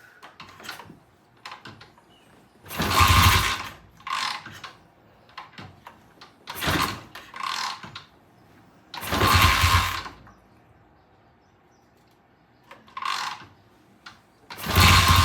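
1970 Triumph motorcycle being kick-started: four loud kicks a few seconds apart, with smaller clicks and knocks between, and the engine not keeping running. It is hard starting and wants a lot of gas, from a carburettor whose float sticks.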